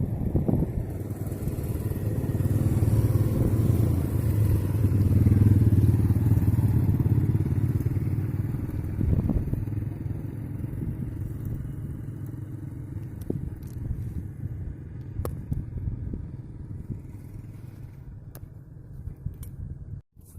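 A boat engine running with a steady low rumble; it grows louder over the first five seconds or so, then slowly fades away. A few light knocks come in the second half.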